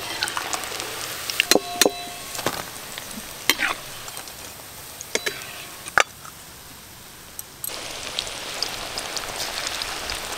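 Oil sizzling as chicken pakoras deep-fry in a wok, with sharp clinks of steel bowls and utensils; one clink about two seconds in rings briefly. The sizzle drops away for a couple of seconds after the middle, then returns.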